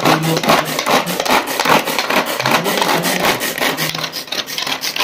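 Pull-string vegetable chopper worked by repeated cord pulls: a fast, rasping clicking whirr as the cord runs out and rewinds and the blades spin inside the bowl.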